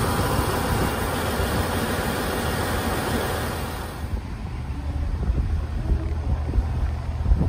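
Rail-carrying trailer cars of a JR Central Kiya 97 series rail-transport train rolling past close by: a loud, even noise of wheels and running gear. About four seconds in it cuts abruptly to a quieter, uneven low rumble.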